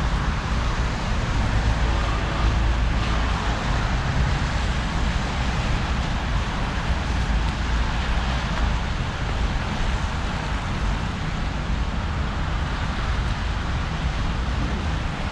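Steady city traffic noise: cars and tyres on wet, slushy roads, with a constant low rumble.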